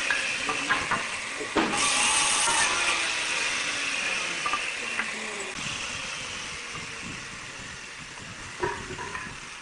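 Wooden boards knocking and clattering as they are carried and set down, a few scattered knocks over a steady hiss that slowly fades.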